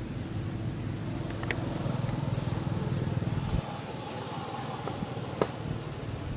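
A motor's steady low hum, its lowest part dropping away suddenly about three and a half seconds in, with a single sharp click near the end.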